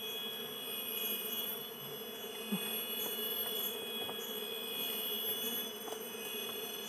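Steady buzzing of a disturbed Asian honeybee (Apis cerana) colony around its freshly opened tree-hollow nest, over a steady high trilling of forest insects. A few faint knocks come through, one about two and a half seconds in.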